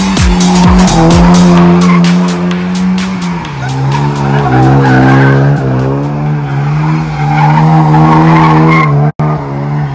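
Mazda RX-7 held at high revs while doing donuts, its rear tyres spinning and skidding on the pavement. The engine note is steady, steps down in pitch about a third of the way in, then wavers up and down.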